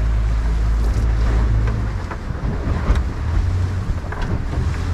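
Small boat on choppy sea: a steady low motor rumble that shifts about two seconds in, water slapping the hull, and wind buffeting the microphone.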